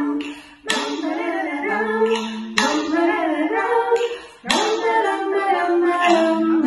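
Several women singing a children's song together without accompaniment, in short phrases with two brief breaks, and a few sharp clicks where phrases start.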